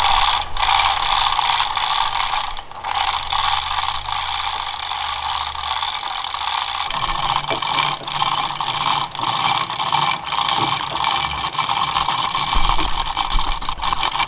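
A rope running through a pulley rigged in a tree while a heavy wooden panel is lowered on it, giving a dense, continuous rattling click that changes in tone about seven seconds in.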